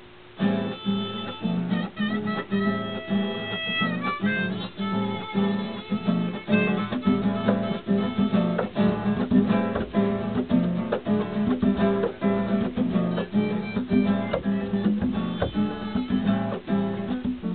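Short instrumental intro on strummed acoustic guitar, starting about half a second in. It keeps a quick, even rhythm, with a held melody line, perhaps harmonica, over the first few seconds.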